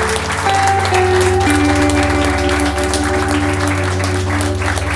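Background music: held notes that step to new pitches over a steady low drone, with a busy crackle of quick clicks throughout.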